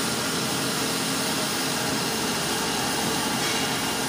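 Kotec plate beveling machine running through a 45-degree bevel cut: the motor and milling cutter head make a steady, even machining noise as the plate is fed past the cutter.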